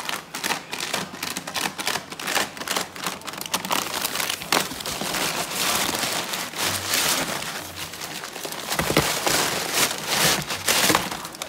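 Crumpled brown packing paper crinkling and rustling without a break as a beagle digs through it with her nose inside a cardboard box. About halfway through, a hand also rummages in the paper.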